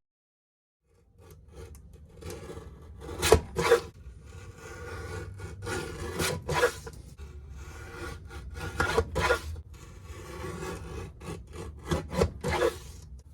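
Irregular rubbing and scraping strokes of hand work, some louder and sharper than others, over a low steady hum; they start about a second in.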